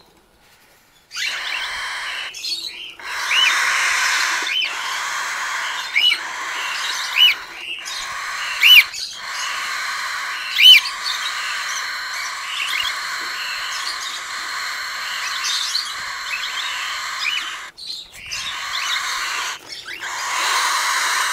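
Cockatiel nestlings begging: a steady raspy, hissing chorus that breaks off briefly now and then, with sharp squeaky calls rising out of it every second or two, the loudest about nine and eleven seconds in.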